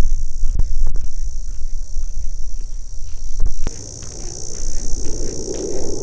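Insects chirring steadily in a high band, growing stronger a little past halfway, over a low rumble with a few sharp clicks.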